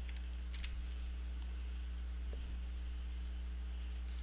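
A handful of short computer mouse and keyboard clicks, some in quick pairs, over a steady low hum.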